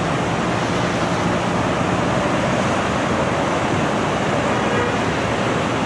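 Steady rushing rumble of a Medellín Metro train in motion, heard as continuous even noise without breaks.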